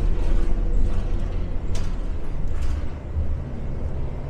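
Steady low rumble of an airport apron shuttle bus heard from inside, with two short sharp clicks or rattles near the middle.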